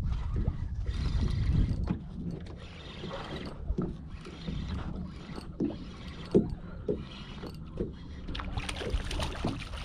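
Wind rumbling on the microphone and water slapping against a small boat's hull, heaviest in the first two seconds, with scattered clicks and knocks as a fishing reel is cranked to bring in a hooked fish.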